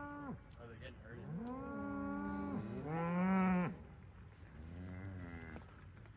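Hereford cattle mooing: several long moos from the herd, the loudest and highest about three seconds in, with a fainter one near the end.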